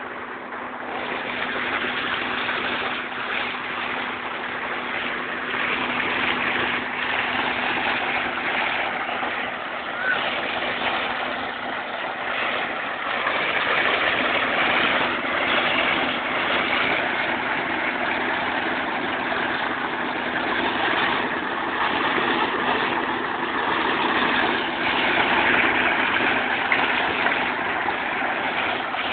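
Engine-driven irrigation pump running steadily with a constant hum, while water gushes from its outlet pipe into a concrete channel.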